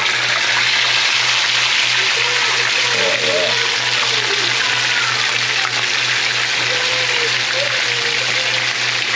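Fish frying in a pan of hot oil: a steady, loud sizzle.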